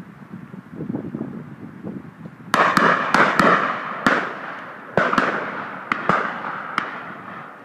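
Several shotguns firing at driven game in an irregular volley of about ten shots, starting about two and a half seconds in, each shot trailing off in an echo.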